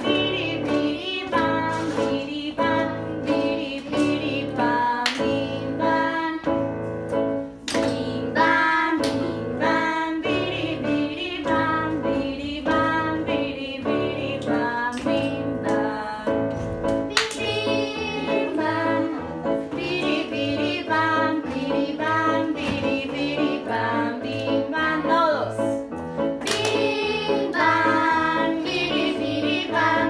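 A group of children playing electronic keyboards and singing a song over a steady, repeating beat.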